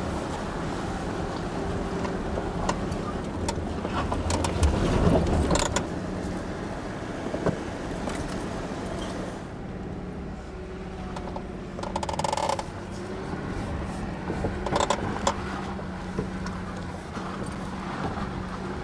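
A Jeep's engine running at low speed as it crawls over a rutted, rocky dirt trail, a steady low hum with scattered knocks and rattles from the body and suspension over the bumps.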